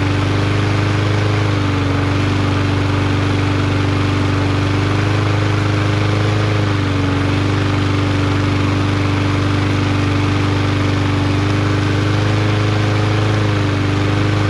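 Briggs & Stratton 550EX single-cylinder push-mower engine running steadily at governed speed, its pitch sagging briefly three times. It is running after its governor tension spring was bent to raise the RPM slightly.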